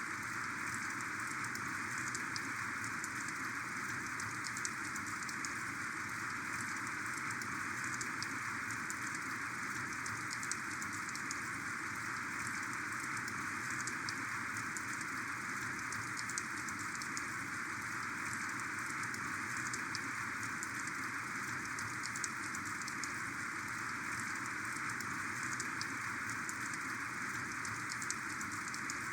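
Heavy rain falling steadily, a dense even hiss with many sharp individual drop impacts ticking through it.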